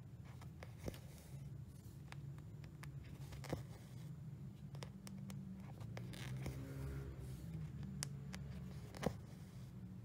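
Cross-stitch needle pushed through aida fabric and thread drawn through it: soft scratchy rasps with a few sharp little clicks, over a low steady hum.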